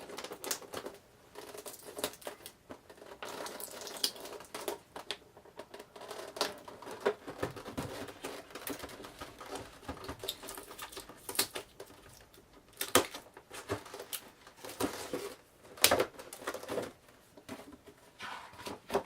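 A cardboard box being opened and handled: flaps pulled open and packaging shifted, with scattered taps, scrapes and rustles. Two louder knocks come in the second half.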